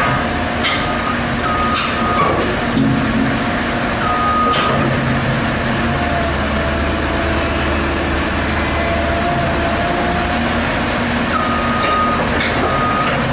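Heavy vehicle engine running with short, irregular warning beeps like a reversing alarm, and a few sharp clanks.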